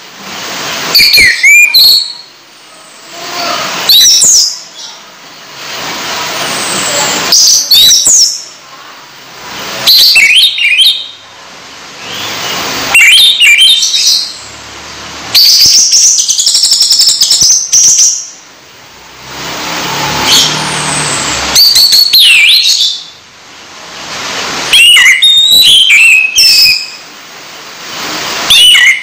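Caged songbird singing loud, short phrases of sliding whistles and chatter, one every two to three seconds, with a longer whistled phrase about two-thirds of the way through. Between the phrases a steady rushing hiss of running tap water swells up.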